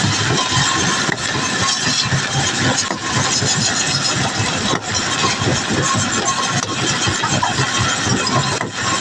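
Heavy machinery running: a loud, steady engine din with no pauses or changes.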